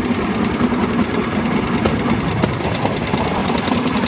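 Small engine of a bamboo train (norry) running steadily as the platform rolls along the rails, with a few sharp clicks from the wheels on the track.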